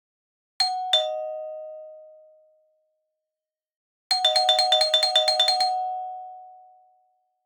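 Two-tone doorbell chime: a single ding-dong, a high note then a lower one, each ringing out. A few seconds later comes a rapid run of about a dozen alternating ding-dong strikes, as if the button is pressed repeatedly, before the chime rings away.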